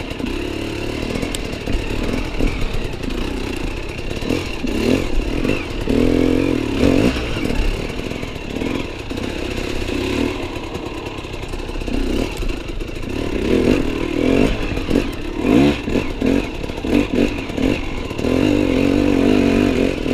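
Enduro motorcycle engine running under changing throttle as it is ridden over rough forest ground, revving up in repeated surges and dropping back between them.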